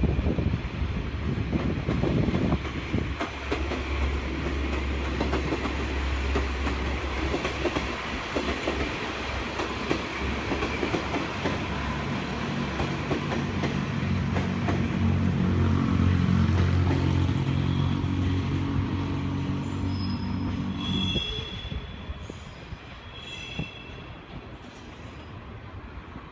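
A diesel railcar train running past: the rumble and clatter of its wheels on the rails, with its diesel engine note rising to a peak past the middle and then dropping away about 21 seconds in. A few brief high-pitched tones sound near the end.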